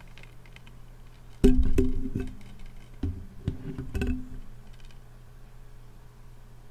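Clear plastic Blu-ray case handled right up against the microphone. A loud clack comes about a second and a half in, with a short low ring, then a few more knocks and clacks around three to four seconds in.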